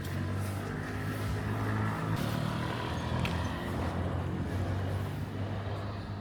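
Motor vehicle engine running close by with a steady low hum over street noise.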